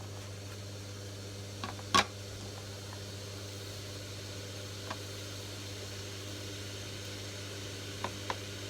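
Steady low electrical hum of a running household appliance, with a sharp click about two seconds in and a few fainter clicks and taps later.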